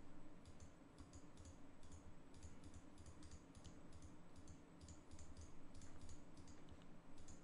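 Computer mouse's left button clicked over and over, faint, about two to three clicks a second.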